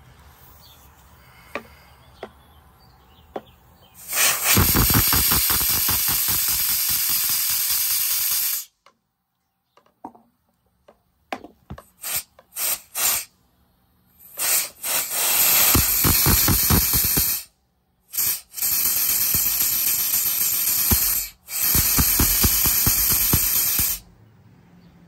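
Air motor of a Dake 50-ton press's air-hydraulic pump running on compressed air, a loud hiss with rapid pulsing strokes, as the freshly freed-up pump is tested to see whether it will draw and pump oil. It starts about four seconds in, then stops and restarts several times in short spurts and longer runs.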